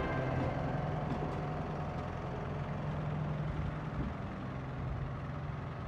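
Diesel engine of a 15-inch-gauge miniature-railway diesel locomotive running steadily with a low hum as the locomotive moves slowly along the track.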